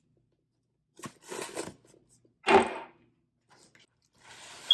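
Crinkling, crackling and tearing of a mailing package and its wrapping being opened by hand. It comes in short bursts cut apart by dead silence, the loudest about halfway through.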